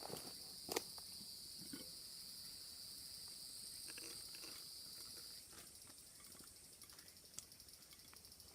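Insects singing in a steady high-pitched drone that cuts off suddenly about five seconds in, while a higher, pulsing trill carries on. A few soft clicks and knocks sound over it, the loudest just under a second in.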